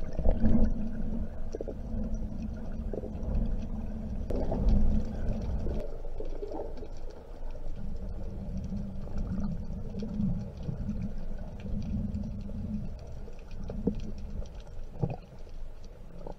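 Underwater noise picked up by a diver's camera while swimming: a muffled low rumble of moving water, with faint scattered clicks, swelling briefly about four seconds in.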